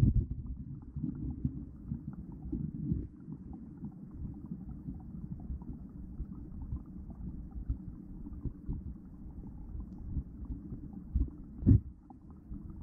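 Muffled underwater sound inside a waterproof camera housing: a low, steady rumble of moving water with soft knocks, and one louder thump about a second before the end, while a large freshwater eel swims against the camera.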